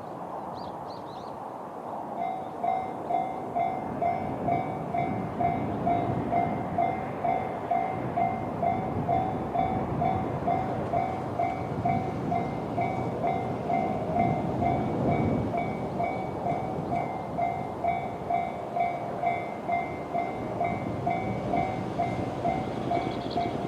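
Japanese railway level-crossing alarm with the JR standard electronic bell tone, starting about two seconds in and ringing steadily at about two rings a second: the crossing warning for an approaching train.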